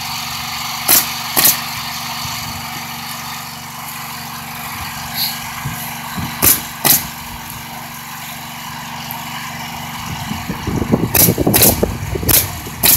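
Pneumatic coil roofing nailer firing 1.5-inch coil nails through ridge cap shingles, in four pairs of sharp shots about half a second apart: two nails per cap. A steady motor drone runs underneath.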